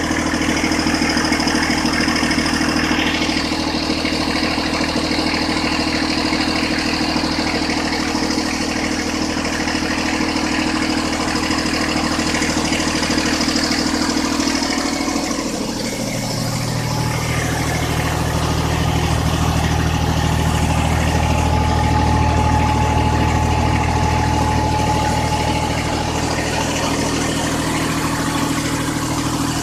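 Small tractor engine running steadily while driving a high-pressure sprayer pump. About halfway through the engine note changes and runs a little louder.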